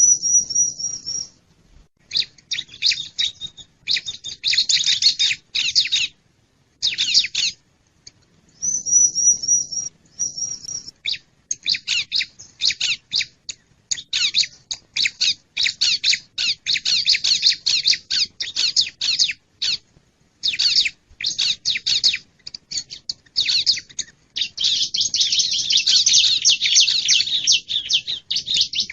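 Bar-winged prinia (ciblek) calls played as a bird-trapping lure: bursts of rapid, sharp, high chirps with short pauses between them, and a high, drawn-out wavering phrase at the start and again about nine seconds in.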